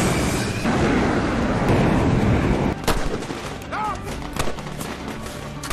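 A carrier fighter jet's engines roaring at full power for launch, over the film's orchestral score. About three seconds in a sharp gunshot cuts through, followed by scattered gunfire.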